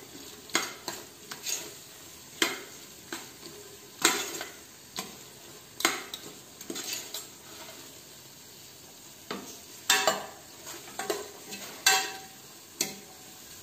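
Metal spoon scraping and knocking against the inside of a pressure cooker as a thick onion-tomato masala is stirred, in irregular strokes about one or two a second. Under it, a faint steady sizzle of the paste frying with the freshly added biryani masala.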